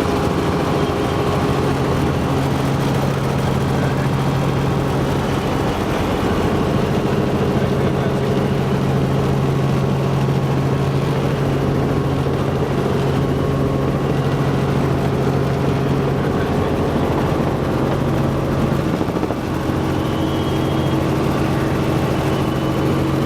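Helicopter engine and rotor running steadily, a loud hum over rushing noise; its tone shifts slightly about nineteen seconds in.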